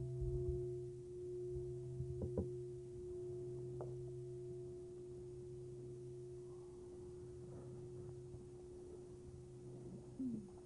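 A struck meditation bell ringing on and slowly dying away, a low hum with clearer higher tones above it. A few soft knocks about two and four seconds in.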